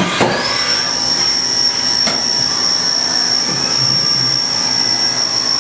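Haas VF-3 vertical machining center milling a metal plate: the spindle's high whine rises briefly about half a second in, then holds at one steady pitch over a loud steady noise of cutting and flying chips.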